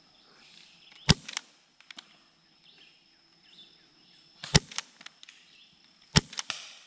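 Three shots from an airsoft pistol, sharp cracks about a second in, about four and a half seconds in and about six seconds in, each followed by one or two fainter clicks.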